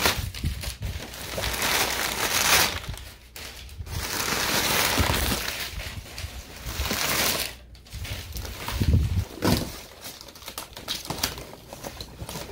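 Crumpled packing paper rustling and crinkling in several long stretches as hands push it about and pull it aside inside a cardboard box.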